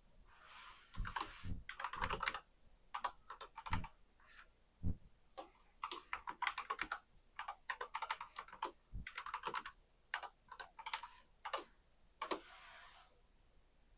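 Typing on a computer keyboard: quick runs of key clicks in several bursts with short pauses between them.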